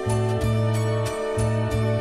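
Instrumental film-score music from the 1972 soundtrack: a steady pulse of short, bright high notes, about four a second, over held low bass notes that change every half second or so.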